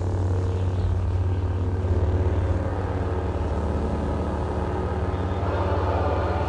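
Lightsaber hum: the steady, low buzzing drone of ignited blades.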